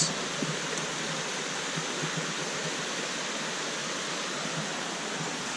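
Steady rush of a flowing stream, an even hiss of water that does not change.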